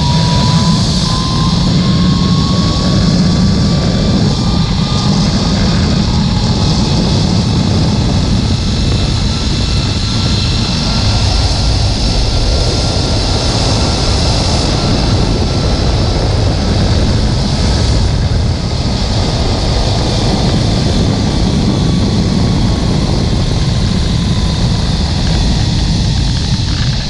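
Zipline trolley pulleys running along the steel cable, a thin whine that rises over the first several seconds and then slowly falls, over heavy wind rumble on the microphone.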